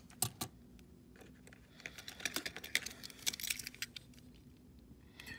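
Small die-cast toy trucks being handled on a table: two sharp clicks just after the start, then a run of light clicks and taps from about two to three and a half seconds in.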